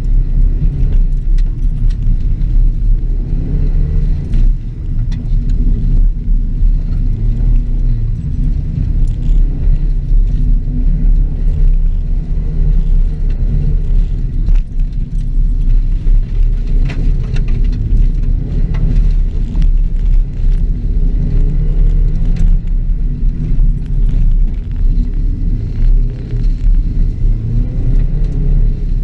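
2006 Subaru WRX's turbocharged flat-four driven hard on a dirt rallycross course, its revs rising and falling, under a heavy low rumble with scattered sharp ticks.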